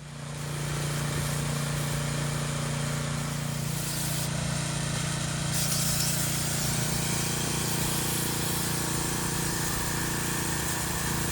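A small engine running steadily at a constant speed under a loud, steady hiss, which thins briefly about four seconds in.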